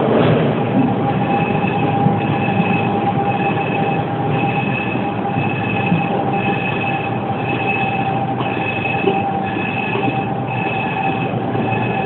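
Mitsubishi third-rail subway train running slowly, with a steady whine over a dense rumble. A high beeping tone repeats about one and a half times a second.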